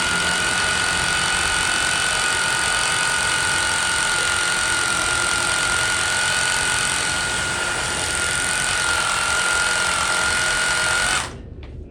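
Hammer drill boring into a concrete floor for a wedge anchor: a steady loud rattle with a constant high whine from the motor, cutting off suddenly near the end.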